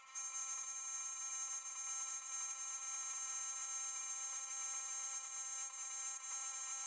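Sieg SX2P mini mill cutting an aluminium block with an end mill: a steady, high-pitched whine from the spindle and cutter.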